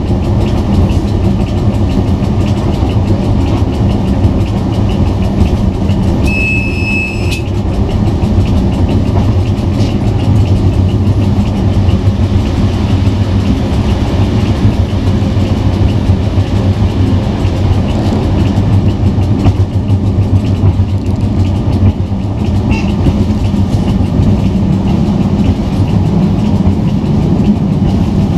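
ČSD class 754 diesel-electric locomotive under way, heard from inside its cab: the V12 diesel engine runs with a steady low drone over the rumble of wheels on rail. A short high-pitched beep sounds about six seconds in.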